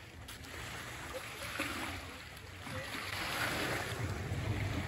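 Small waves washing against shoreline rocks, swelling and falling every second or two, with wind rumbling on the microphone.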